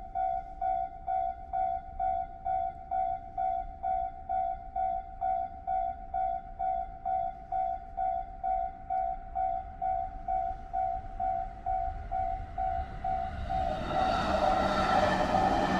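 Japanese railway level-crossing alarm ringing, an electronic ding repeating about twice a second. Near the end, a passing train's noise swells up over it.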